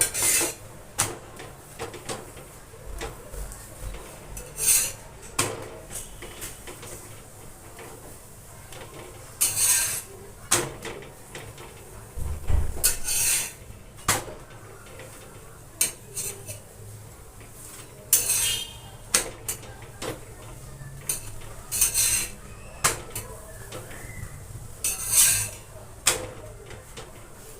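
Cooking utensil scraping and clinking against a griddle (tawa) in about a dozen brief, irregularly spaced strokes, some drawn out to half a second, as a flatbread is roasted and turned.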